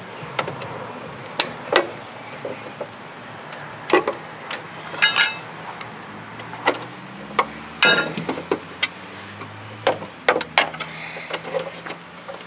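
Irregular sharp clicks and knocks of hand tools and plastic parts: a screwdriver and locking pliers working at the plastic case and cord of a battery backup unit, with quick rattling clusters about five and eight seconds in. A faint low hum runs beneath the middle of it.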